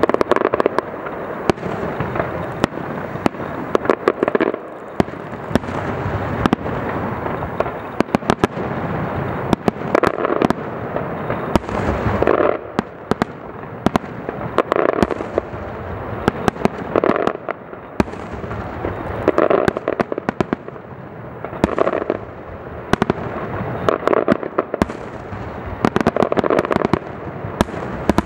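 Aerial fireworks display: a continuous dense crackle of many small sharp pops, with louder shell bursts swelling every two to three seconds.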